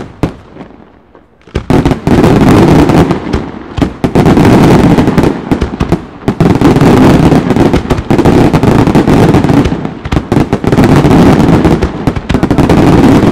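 Fireworks battery firing: a few separate bangs, then from about a second and a half in a loud, dense, continuous barrage of rapid explosions as the shells burst in red stars.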